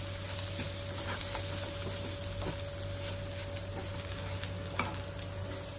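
Cashew chicken sizzling in a pan as it is stirred, with a few light clicks scattered through.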